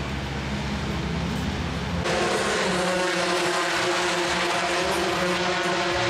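Race car engine running with a low, steady note; about two seconds in the sound cuts abruptly to a louder, higher-pitched engine note.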